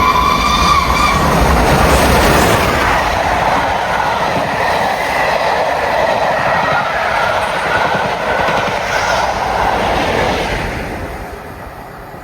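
A train passing at speed, its wheels clattering over the rail joints, loud through the middle and fading away near the end. A held warning note from the train ends about a second in.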